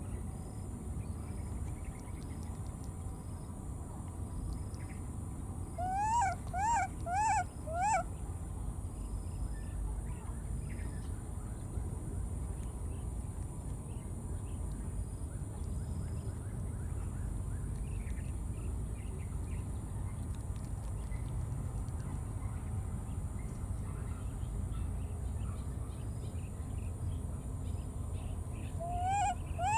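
Baby macaques crying: four short calls in quick succession, each rising and falling in pitch, about six seconds in, and two more near the end, over a steady low background rumble.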